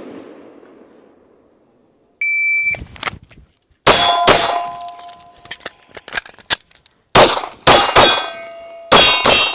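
A shot timer gives one short high beep. Then a PSA Dagger 9mm pistol fires seven shots: a quick pair, a pause of nearly three seconds, three shots, then a final pair. A metallic ringing lingers after the shots.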